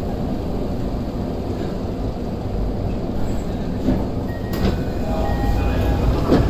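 Toei Oedo Line linear-motor subway train heard from inside the car, a steady low rumble as it comes to a stop at a station. In the second half there are a couple of sharp sounds as the car's sliding doors open.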